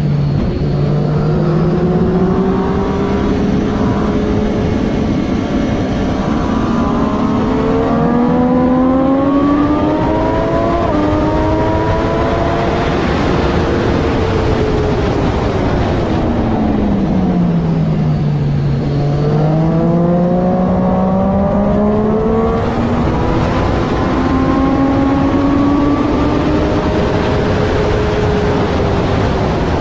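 Triumph Daytona 675R's three-cylinder engine under race load, its pitch climbing as it accelerates, dropping sharply about halfway through as it slows for a corner, then climbing again, over steady rushing noise.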